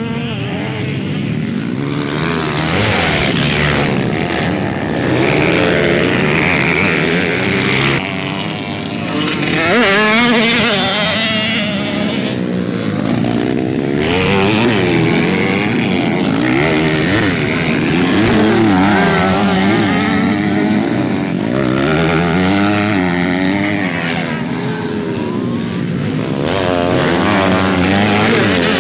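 Several motocross dirt bikes racing on a dirt track, their engines revving up and down in pitch as they accelerate out of corners and back off, several at once.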